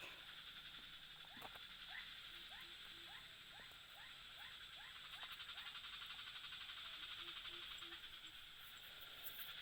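Faint outdoor night chorus of insects and frogs: a steady shrill hum, with a run of about a dozen quick rising chirps in the first half and two short groups of low notes.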